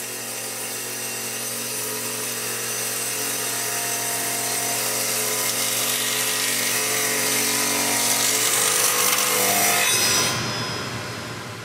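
Table saw cutting a groove along a thick wooden beam. The cutting noise grows steadily louder as the beam is fed through, then the cut ends about ten seconds in and the sound falls away.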